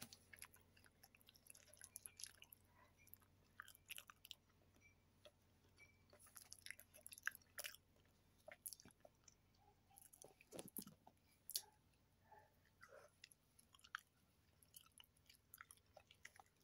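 Faint, irregular chewing of soft cooked saba banana, with small clicks and crackles of banana peel being handled.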